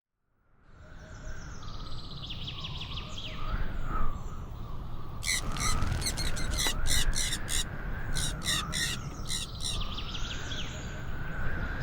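Outdoor bird chorus fading in: small birds chirping, then a run of about a dozen harsh, crow-like cawing calls in quick succession from about five seconds in until nearly ten seconds, over a steady low rumble.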